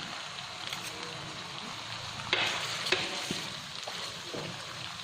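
Fermented snakehead pieces frying in oil in a pan, with a steady sizzle just after sugar has gone in. Two short clatters about two and a half and three seconds in.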